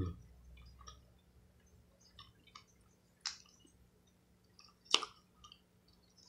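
Faint close-up eating sounds of someone eating a seafood boil by hand: chewing with small wet clicks, and two sharper clicks about three and five seconds in, the second the loudest.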